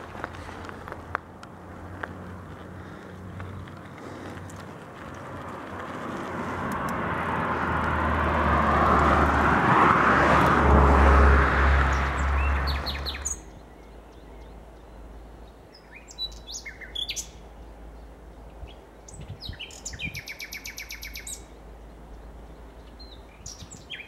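A rushing noise with a low rumble swells to a loud peak about ten seconds in, then cuts off suddenly. After it, small songbirds chirp and sing in short, quick runs.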